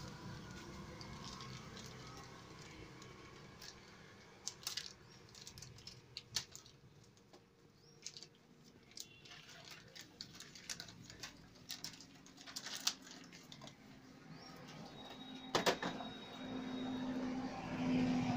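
Handling noise from unpacking a tractor piston ring set: plastic and cardboard packaging rustling, with scattered light clicks and taps as the thin metal rings are handled. The sharpest click comes about three-quarters of the way through.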